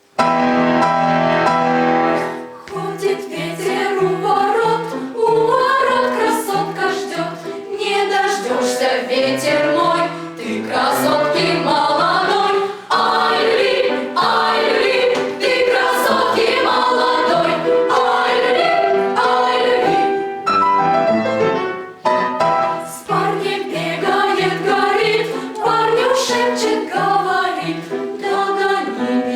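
Youth academic choir singing in parts, starting suddenly with a loud full chord.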